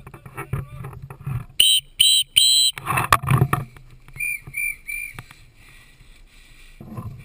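Climbing gear being handled: rope, metal carabiners and belay hardware clicking and rustling against gloves and vegetation. This is broken by two sets of three short, steady high-pitched beeps, the first set loud and the second fainter.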